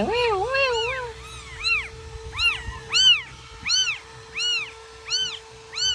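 Newborn kittens mewing over and over while nursing: high, thin mews that rise and fall, about one every two-thirds of a second, with lower wavering calls in the first second.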